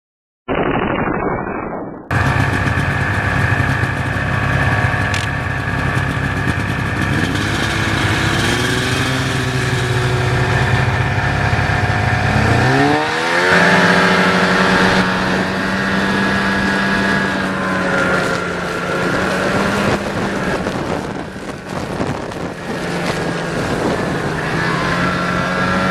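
A motor vehicle's engine running steadily. About halfway through it rises smoothly in pitch as it speeds up, then holds a steady higher note.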